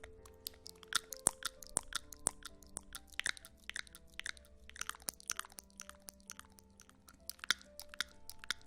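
Close-miked ASMR crackling and crisp clicking, irregular and several a second, over soft ambient music with long held tones.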